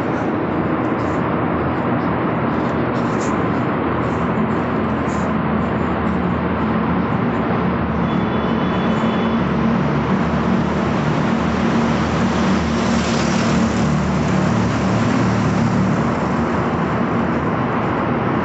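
Steady rumble of vehicle traffic inside a road tunnel, the engine drone echoing off the concrete walls and swelling somewhat in the middle.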